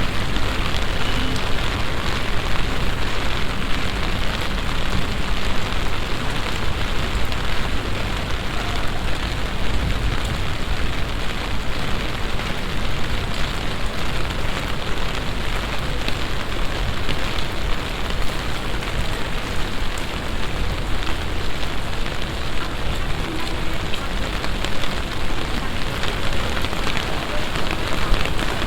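Heavy rain from a summer downpour falling steadily: a dense, even hiss full of fine drop ticks.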